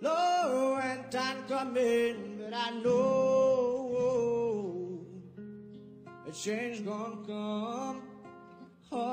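A man singing a slow song to acoustic guitar accompaniment. He holds long notes, with a softer stretch about five seconds in before the voice comes back.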